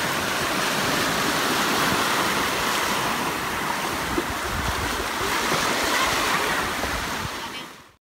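Small waves breaking and washing up on a beach shore, with some wind rumble on the microphone; the sound fades out near the end.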